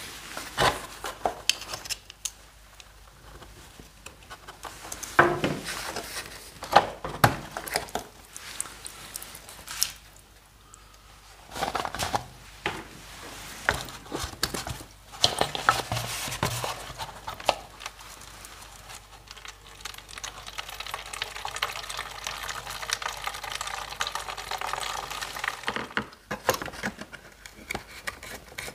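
Clicks and knocks of small metal parts as a scooter carburettor is handled, then fuel trickling from the fuel hose into a glass bottle as a steady hiss for about ten seconds, with a few more clicks near the end.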